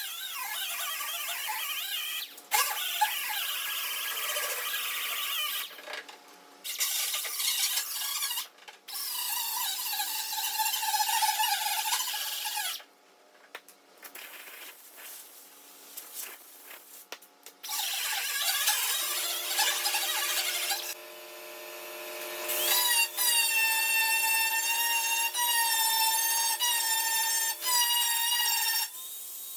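Grinder fitted with a grinding stone taking down a repair on a steel car quarter panel, in passes of a few seconds with short pauses between. Near the end it changes to a steady high squeal.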